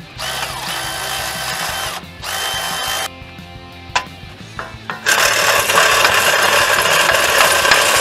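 Cordless power tool running on the front wheel hub in three bursts, a short whirring run, a briefer one, then a longer, louder run starting about five seconds in.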